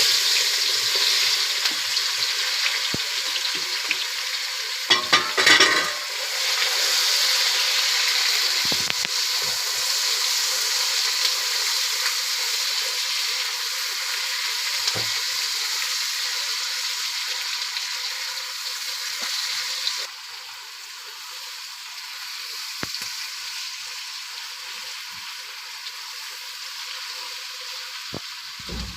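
Food frying in hot oil in a cooking pot, a steady sizzle, with a few scrapes of stirring about five seconds in; the sizzle becomes noticeably quieter about twenty seconds in.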